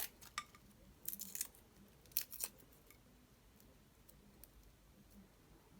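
Dry, papery garlic skin crackling as a head of garlic is being peeled: three short clusters of crisp crackles in the first two and a half seconds, then only faint room noise.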